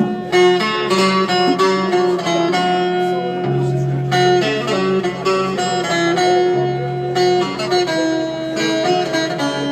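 Music on plucked string instruments: a melody of stepping notes over held low notes.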